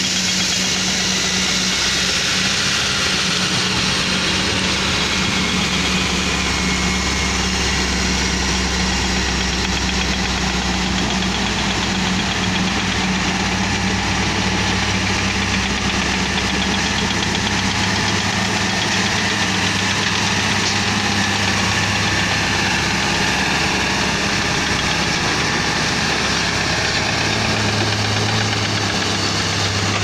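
Hino dump truck's diesel engine running steadily as the loaded truck drives by. The engine note steps up in pitch partway through and again near the end.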